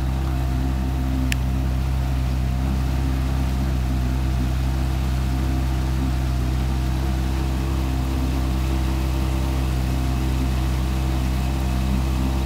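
Motorboat engine running steadily at low speed, a constant low hum, with one brief sharp click about a second in.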